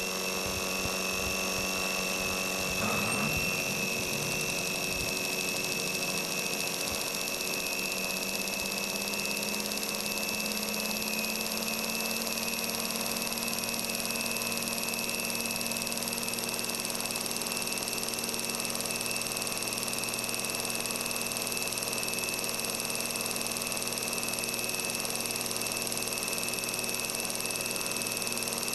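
Kromrey converter armatures spinning, a steady machine whine made of several held tones, the brightest of them high-pitched. About three seconds in there is a brief rattle as the second armature is brought in. After it a low hum climbs slightly in pitch over the next several seconds as that armature spins up.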